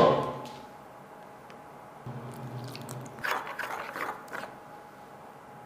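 Chopsticks stirring a thick batter in a ceramic bowl: a few soft, wet, irregular strokes about halfway through. At the start, a stainless steel mixing bowl rings and fades after being struck.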